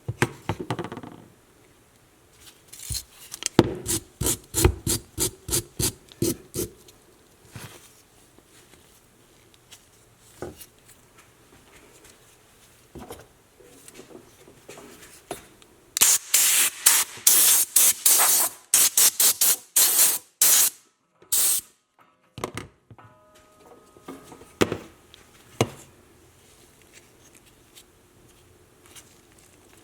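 Hand rubbing strokes in a workshop: a rhythmic run of about three strokes a second a few seconds in, then a louder, hissier run of quick strokes a little past the middle, with a few scattered knocks.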